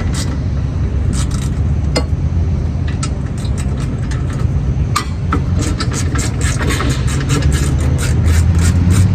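A steady low mechanical drone like a running engine, with a few sharp metallic clicks from hand tools working on the brake assembly, the clearest about two and five seconds in.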